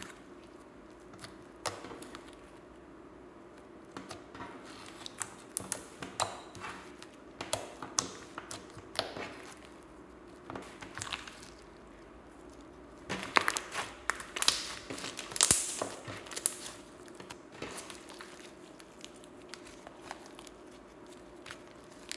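White slime being stretched, folded and squeezed by hand, giving off scattered sticky pops and crackles, with a busier run of crackling about two-thirds of the way through.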